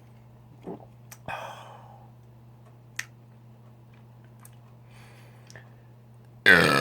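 A loud burp starts suddenly near the end, its pitch falling. Before it there is only a low steady hum and a few faint clicks.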